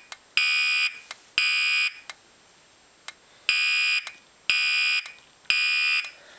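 Genesis fire-alarm speaker strobe sounding its horn tone in the temporal-three evacuation pattern. Buzzy half-second blasts come about one a second in groups of three, with a pause of about a second and a half between groups. Short sharp ticks come between the blasts.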